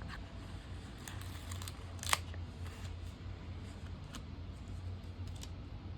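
Faint clicks and ticks of sticker sheets and planner paper being handled, with one sharper click about two seconds in, over a steady low hum.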